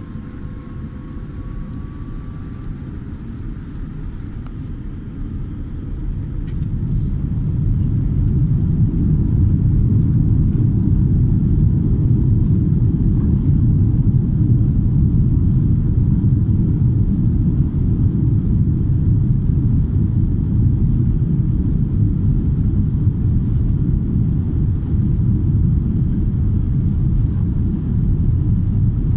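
Cabin noise of a Boeing 787-10 airliner as the engines power up: a low rumble that builds over the first several seconds, with a faint rising whine early on, then holds loud and steady, as on the takeoff roll.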